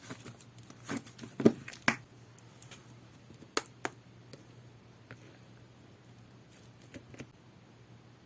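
Jelly-textured slime being pressed and stretched by hand, giving a run of sticky clicks and pops in the first two seconds, then a few scattered clicks.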